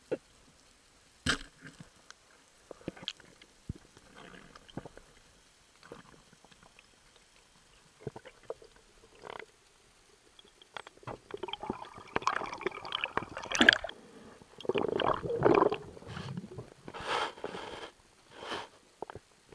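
Muffled underwater noise picked up through a sealed camera housing as a diver moves: scattered sharp clicks and knocks, then a longer run of louder bubbling and rubbing noise in the second half.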